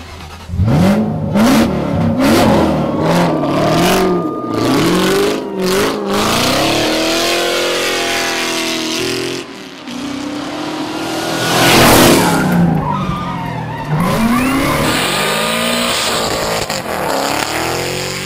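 Police Ford Mustang's V8 engine revving hard, its pitch climbing and dropping again and again as it is driven through the gears and bends, with tyre squeal. The loudest moment is a brief rush about twelve seconds in.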